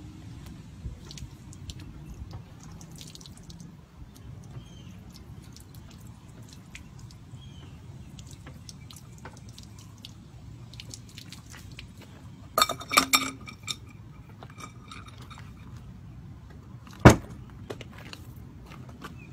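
Water pouring and dripping from a pan onto a car's dented rear bumper, with small splashes and drips throughout. About two-thirds in comes a short run of ringing metallic clanks. Near the end there is one sharp pop as a rubber plunger is worked on the dent.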